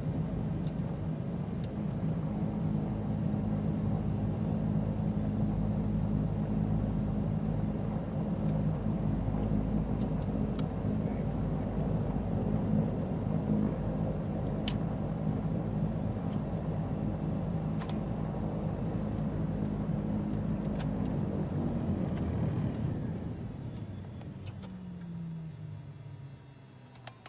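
A Beechcraft King Air's twin turboprop engines heard from inside the cabin, running steadily, then shut off about 22 seconds in, their pitch falling as they spin down. A few faint clicks are heard along the way.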